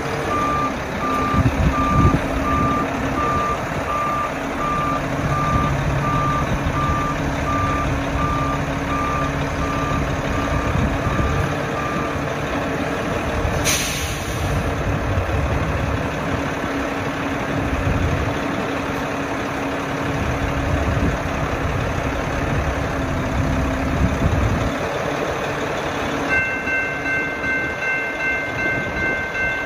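Hi-rail truck's diesel engine running, with its reversing alarm beeping steadily for the first twelve seconds or so. About halfway there is a short hiss of air. About four seconds from the end a grade-crossing warning bell starts ringing.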